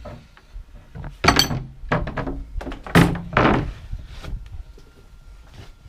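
Shop objects being shifted and set down on a workbench: a few loud thunks and clatters, the loudest about a second in and about three seconds in.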